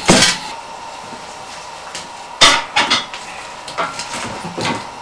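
A few sharp knocks and clanks of firewood going into a wood-burning stove through its open door. The loudest comes about halfway through, followed by several smaller ones.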